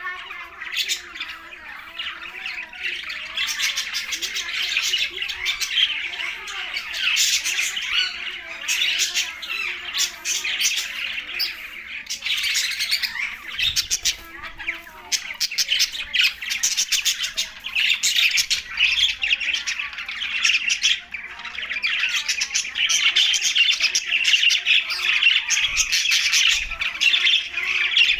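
A flock of budgerigars chattering and squawking continuously, many rapid overlapping calls at once.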